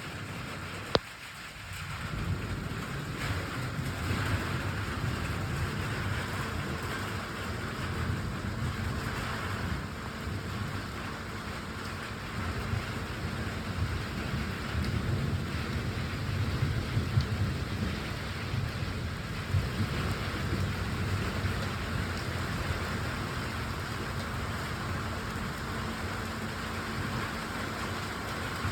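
Steady rain falling, with a continuous low rumble underneath and a single sharp click about a second in.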